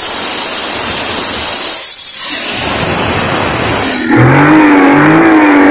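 Maruti Suzuki Alto's three-cylinder petrol engine running loudly close up, revved at the throttle and easing off briefly about two seconds in; it is running again now that the ECU has its 12 V supply. From about four seconds in, a drawn-out wavering tone joins it.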